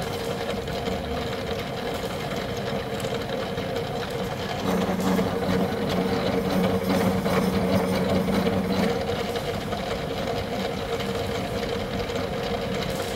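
Milling machine running with a module-4 gear-milling cutter cutting a tooth space into a worm-wheel blank: a steady machine hum with the grind of the cut. A lower tone swells in from about five to nine seconds in.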